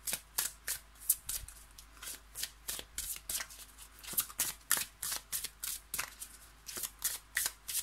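A deck of oracle cards being shuffled by hand: a steady run of short, crisp card snaps, several a second.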